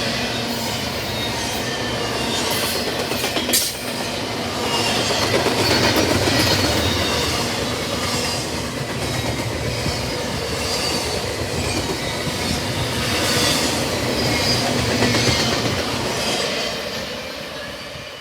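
Double-stack intermodal freight cars rolling past, their wheels clattering over the rails with intermittent high-pitched squeal. The sound fades away near the end as the last cars pass.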